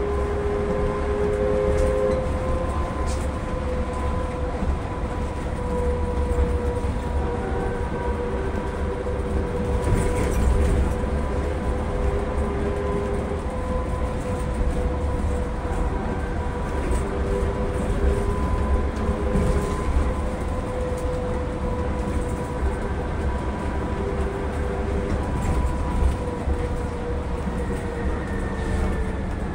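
Electric trolleybus running through a tunnel, heard from inside the cab: a steady low rumble of tyres and running gear under a steady electric motor whine of several held tones, which slide slightly lower near the end.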